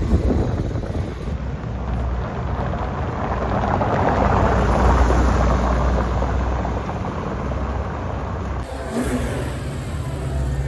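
Porsche sports car passing by: engine and tyre noise swell to a peak about halfway through, then fade. Near the end the sound changes abruptly to a steadier low engine hum.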